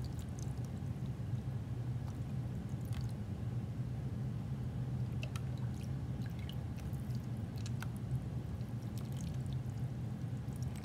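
Water drizzled from a small glass cup onto a modeling-clay model in a foil pan: faint scattered drips and light splats, over a steady low hum.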